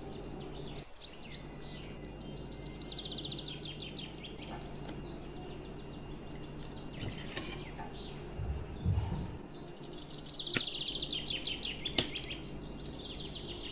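A small bird chirping in rapid trills of repeated notes, in three bursts, over a low steady hum. A few dull thuds come about two-thirds of the way through, and a sharp clink near the end as a metal spoon touches the plate.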